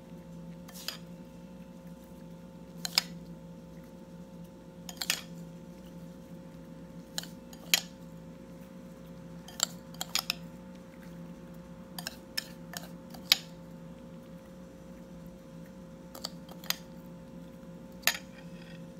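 Irregular light clinks and taps of a ceramic bowl and glass baking dish as buttered breadcrumb topping is scattered by hand over macaroni, about fifteen in all, over a steady low hum.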